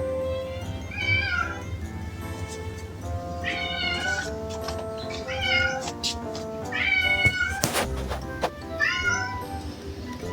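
A stray cat meowing repeatedly, about five drawn-out calls that each bend in pitch, in a chant-like voice. Background music plays steadily underneath.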